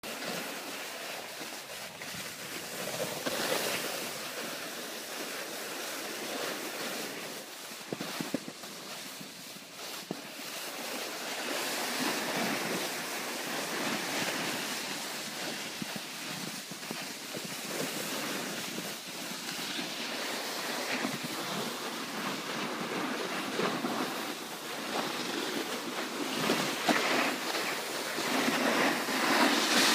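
Snowboard sliding over packed snow: a steady scraping hiss with wind on the microphone, swelling louder near the end.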